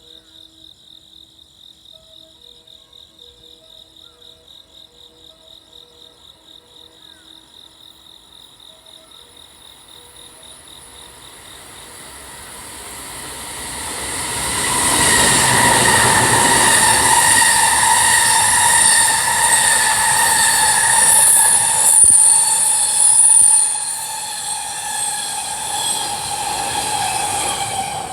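Crickets chirping, then a freight train comes on from about ten seconds in and passes at high speed. The rush of wheels on rail is loud and steady from about fifteen seconds, with a high whine over it, easing a little near the end.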